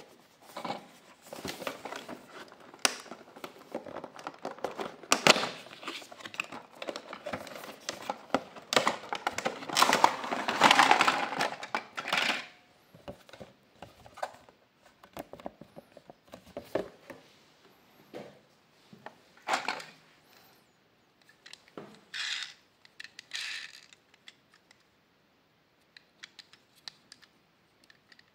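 Cardboard toy box and its plastic packaging being handled and opened: dense crinkling and crackling of plastic for about the first twelve seconds. After that come scattered separate clicks and taps as a small plastic toy motorcycle is lifted out and handled.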